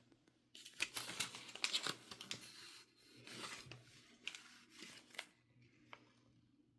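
A paper instruction sheet being handled and unfolded: crisp rustling and crinkling with sharp little clicks, stopping about five seconds in.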